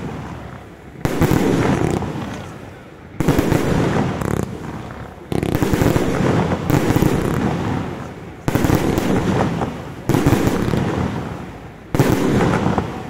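Bolognese-style battery fireworks: six bursts in a row, about every two seconds. Each starts with a sudden bang and breaks into dense crackling that fades before the next.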